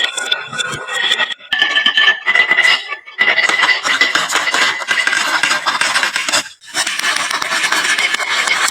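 Marbles rolling and rattling down a wooden marble-run slope, a steady rolling clatter with a ringing tone, broken by short pauses about one and a half, three and six and a half seconds in.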